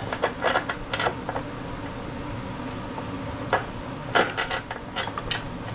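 Scattered sharp metallic clicks and taps in two clusters, one near the start and one after about three and a half seconds, as the spring of a mower's self-propel drive cable is worked by hand against the mower's metal parts, over a steady low background hum.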